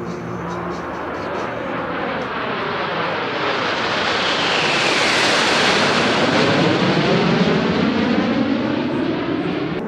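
A formation of Snowbirds CT-114 Tutor jets flying past overhead: the jet noise builds, a whine falls in pitch as they pass about halfway through, and the sound is loudest about two-thirds in before it starts to ease.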